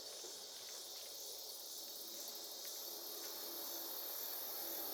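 Steady high-pitched chorus of chirping insects, with a few faint taps and a sharp knock right at the end.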